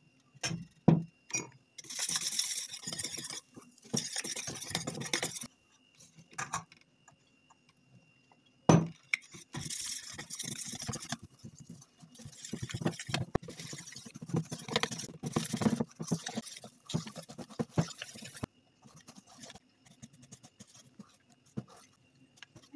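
Flour tipped from a container into a stainless steel bowl of liquid in several pours, with sharp clinks of the container against the bowl. Then a whisk stirring the thickening batter in quick strokes that scrape against the steel bowl.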